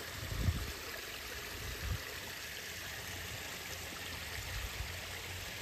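Shallow creek water running steadily, an even rushing hiss, with two brief low thumps about half a second and two seconds in.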